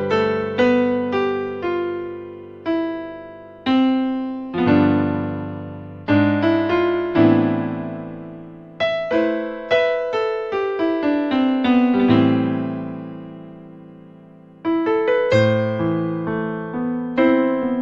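Casio CTK-4200 arranger keyboard playing a piano voice: chords under a melody in short phrases, each struck note fading away. A long chord dies out a little past the middle before a new phrase starts.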